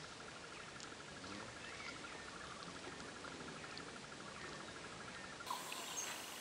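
Faint, steady pulsed trill of an insect, stopping a little over five seconds in.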